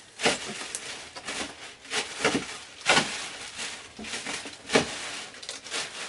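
Cardboard box being opened by hand: a string of irregular scrapes, rustles and knocks as the top flaps are worked at, the loudest just before the halfway point.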